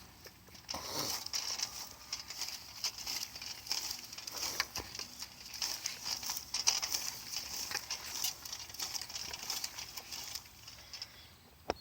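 A simple hand-pulled hilling tool scraping through soil, an irregular run of scratches and crackles with many small clicks.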